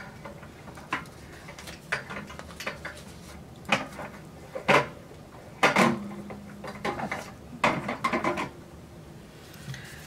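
Irregular clicks, knocks and light clatter of small objects being handled and set down, spread over several seconds, with a brief low hum about six seconds in.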